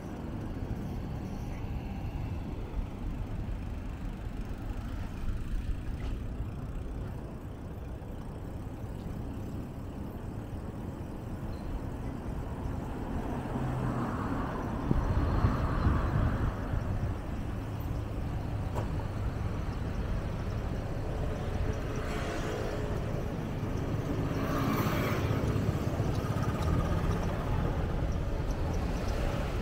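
Road traffic: cars passing over a steady low rumble, with louder passes about halfway through and again near the end.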